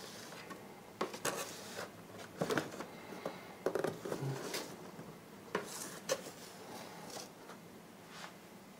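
Plastic blister-card toy package being handled and turned over by hand: scattered light crinkles, taps and clicks of the plastic bubble and cardboard backing.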